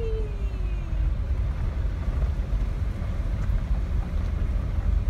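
Jeep driving on a rough dirt off-road trail, heard from inside the vehicle: a steady low rumble of engine, tyres and wind. A falling tone slides down during the first second.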